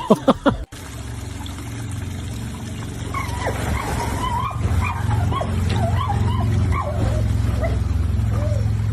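A dog whining and yipping in many short, bending high-pitched cries over a steady low hum. A few loud sharp sounds come in the first moment, before an abrupt cut.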